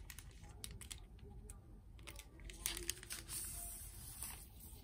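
Clear plastic sleeve crinkling faintly as its flap is peeled open and a sticker sheet is slid out, with scattered light crackles and ticks.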